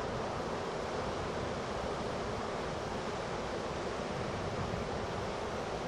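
Hurricane-driven ocean surf breaking and washing toward shore, a steady, unbroken rush of water.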